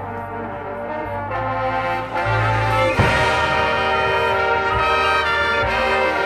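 High school marching band's brass section playing sustained chords over a low bass line. About three seconds in, a sharp percussion hit comes and the chord swells louder and fuller.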